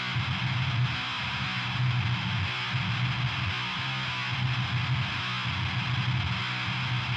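Heavily distorted electric guitar playing a low metal riff through the Acid Rain Pedalworks Judas, an HM2-style distortion and fuzz blend pedal, with bass underneath.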